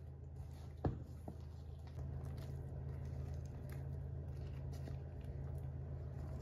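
Spatula stirring and scraping thick cake batter in a stainless steel mixing bowl, with a sharp knock of the utensil against the bowl about a second in, then the batter sliding and squelching out of the tipped bowl into a loaf pan. A steady low hum runs underneath.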